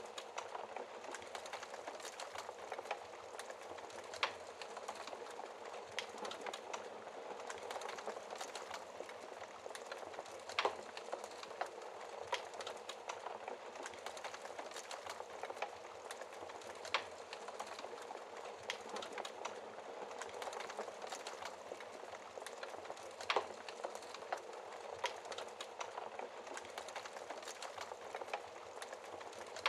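Wood fire crackling in a fireplace: a steady hiss of burning with many small irregular crackles and a few louder pops.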